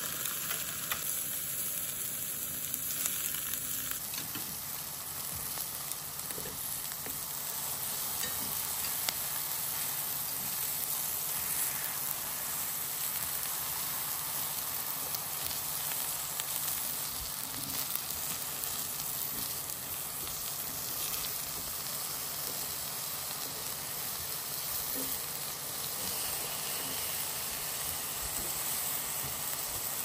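Eggplant slices sizzling steadily in oil in a hot frying pan.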